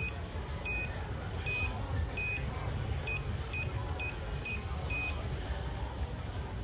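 Keypad of a DA188 door access controller beeping as the PIN is keyed in: about nine short high beeps, a few held slightly longer, at an uneven key-pressing pace, stopping about five seconds in.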